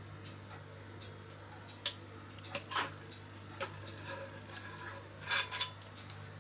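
Light clinks and taps of small hard objects as the boiler of a Meccano steam engine is filled through its filler neck: a sharp clink about two seconds in, a few more after it and a small cluster near the end. A steady low hum runs underneath.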